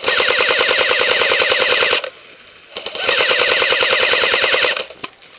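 Airsoft AK-74M replica rifle firing on full auto: two bursts of about two seconds each, rapid even clicking of the gun cycling, with a short pause between them.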